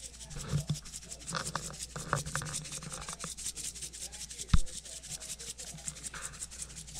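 Lemon pepper seasoning being shaken from a shaker over raw steak: a quick, even rattle and patter of granules from the shaker. About four and a half seconds in there is a single sharp knock.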